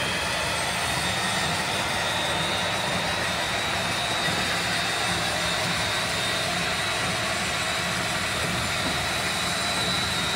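Heavy-duty electric drill running steadily with a constant high whine, driving the gun mount's motor in reverse through its gearing so the quad 40 mm Bofors mount slowly rotates on its freshly greased turntable.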